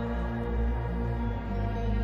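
Background music of held, sustained tones over a deep bass.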